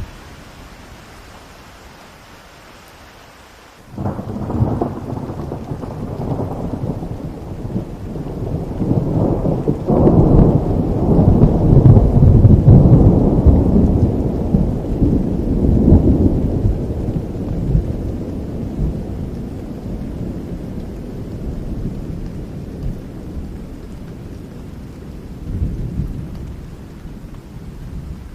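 Steady rain, then about four seconds in a sudden clap of thunder that rolls on as a long low rumble, building to its loudest midway and slowly dying away, with one more swell near the end.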